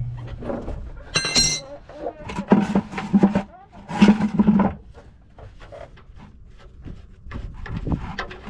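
Plastic oil drain bucket being shifted and pushed up under a truck's oil pan: a short squeak about a second in, then two rasping scrapes of plastic, followed by small knocks.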